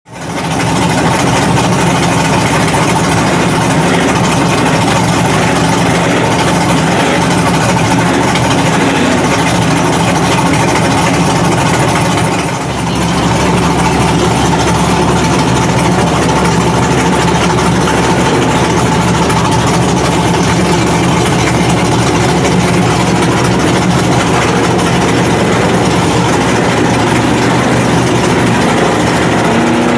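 Big-tyred lifted mud truck engines running steadily while the trucks wade through deep muddy water. There is a short dip about twelve seconds in, and an engine revs up near the end.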